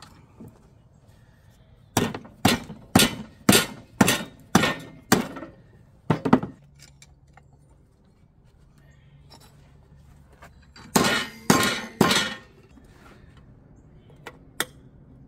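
Hammer blows on a steel strip clamped in a bench vise, shaping sheet metal: a run of about nine sharp metallic strikes, roughly two a second, then a pause and a few more blows close together, with a couple of light clinks near the end.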